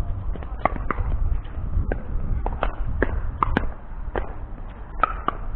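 Pickleball rally at the net: a quick, uneven run of about a dozen sharp pops as paddles strike the hollow plastic ball, roughly two a second, with the ball bouncing on the hard court between some of them.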